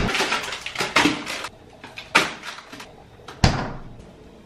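Refrigerator door pulled open with a sharp click, then rustling and knocking as a plastic bag of spinach and food containers are taken out. A solid thump about three and a half seconds in as the door is shut.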